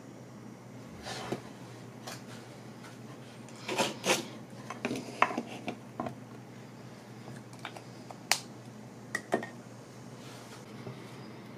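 Light clicks, taps and small clinks of hands working small hardware on a jewelry box lid, busiest about four seconds in, with a sharp single click a little past the middle and two more soon after.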